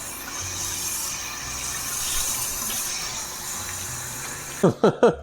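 Kitchen sink tap running, a steady rush of water, as hands are washed with soap after breading chicken. Voices break in near the end.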